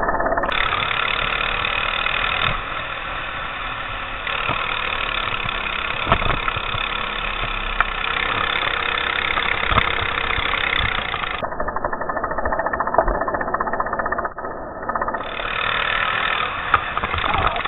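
Go-kart engine running at racing speed, heard from a camera mounted on the kart, with the sound of other karts in the pack around it. The sound changes abruptly a few times.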